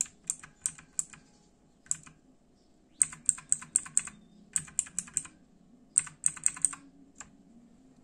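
T-Dagger Naxos T-TGK310 mechanical keyboard with Outemu Blue switches: sharp key clicks in quick runs of three to five presses, with short pauses between runs and single clicks about two seconds in and near the end. The keys are being pressed together with the Fn key to step through the lighting modes.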